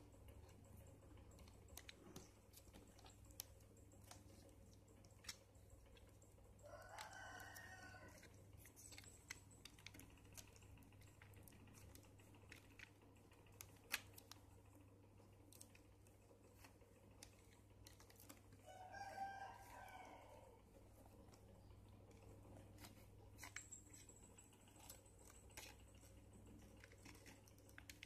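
Faint scattered clicks and scratches of a snap-off utility knife slitting the tape along a cardboard box's edge. A rooster crows twice in the background, each crow about a second and a half long and louder than the cutting.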